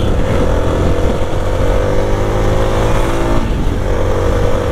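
Motorcycle engine running under way, its pitch rising slowly for about three seconds and then falling away, over a steady low rumble.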